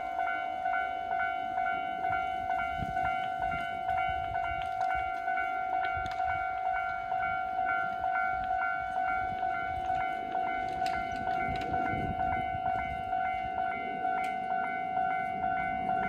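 Japanese level-crossing warning bell ringing, an electronic ding repeated at a steady, even rate, the signal that a train is approaching the crossing.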